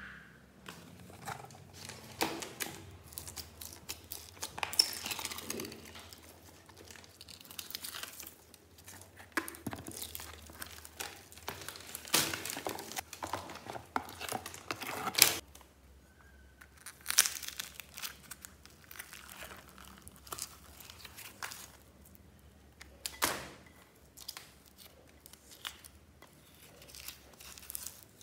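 Clear plastic bin liner crinkling and sticky slime pulling apart and dropping into it, in irregular bursts with scattered sharp clicks.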